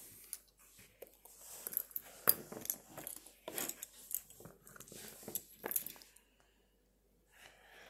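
Plastic Lego pieces clicking and rattling as they are handled and moved about. There is a quick run of small sharp clicks for about five seconds, and it stops about six seconds in.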